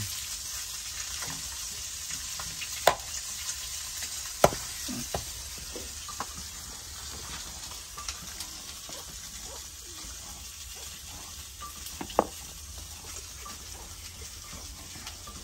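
Raw pork pieces handled by hand in a plastic basin: soft wet rustling over a steady hiss, broken by a few sharp knocks.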